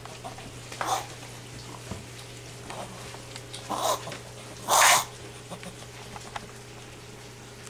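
A sick Miniature Pinscher breathing with a congested, gasping sound: three short noisy blasts of air, the last and loudest just before five seconds in. The owner says she seems to be gasping for air and sounds congested, blowing out clear droplets; x-rays showed nothing and antibiotics did not help.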